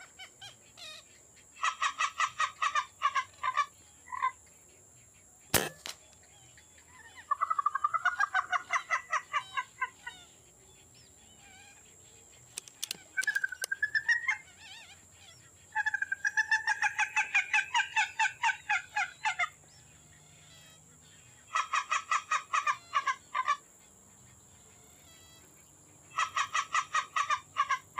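Birds calling in repeated series of rapid, evenly pulsed notes, each series lasting a couple of seconds, with gaps between them. A single sharp click sounds about five and a half seconds in.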